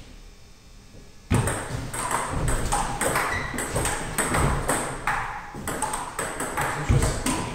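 Table tennis rally: the celluloid ball clicking off the rubber-faced rackets and bouncing on the table. It starts about a second in, with a quick run of sharp pings.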